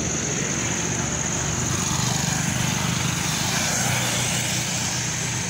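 Road traffic going past: tyre and engine noise from passing vehicles, swelling as one passes close about two seconds in and fading after four. A steady high-pitched whine sits above the traffic noise.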